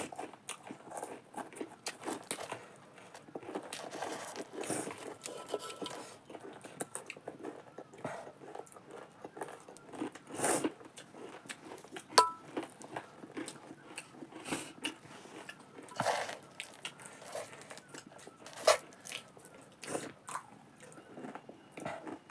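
Close-up chewing and crunching of jhaalmuri, a crunchy puffed-rice snack, with irregular small crackles and clicks. About twelve seconds in, a sharp metallic clink of a spoon on the steel bowl rings briefly.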